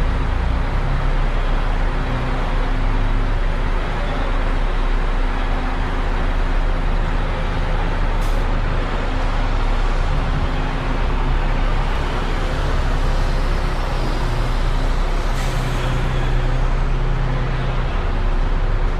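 Bus station ambience: buses' diesel engines idling as a steady low rumble under a constant wash of traffic noise. Two short hisses of air brakes come about eight seconds in and again about fifteen seconds in.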